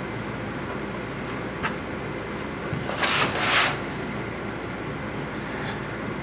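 Handling noise from fitting the rubber feet back onto the bottom of a Lenovo N22 Chromebook: a small click about one and a half seconds in, then two short, loud scraping rubs about three seconds in, over a steady background hum.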